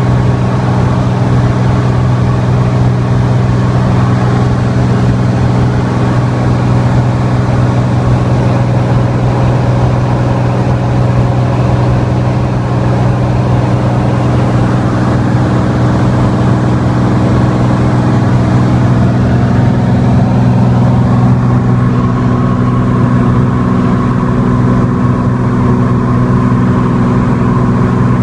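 Single piston engine and propeller of a light aircraft in cruise, heard inside the cabin as a loud, steady drone, its note shifting slightly about twenty seconds in.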